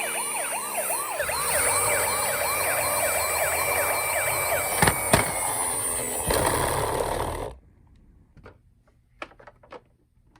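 Several toy ambulances' electronic sirens sounding together, with fast repeating wails at about four a second over a steady high tone. A couple of sharp clicks come about five seconds in. All of it cuts off suddenly after about seven and a half seconds, leaving only faint clicks and taps.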